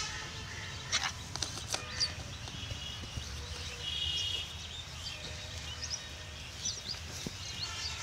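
Outdoor ambience of scattered short, high bird chirps and calls over a low steady rumble, with a few sharp clicks about a second in and a longer high call about four seconds in.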